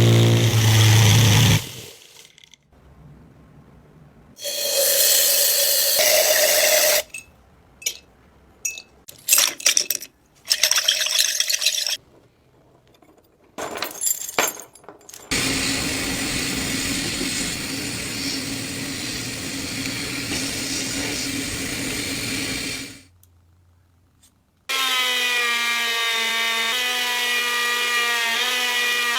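A run of workshop tool sounds. First come short bursts of scraping or sawing noise, then a long steady power-tool run of about eight seconds. After a brief pause a motor starts whining, its pitch shifting a little.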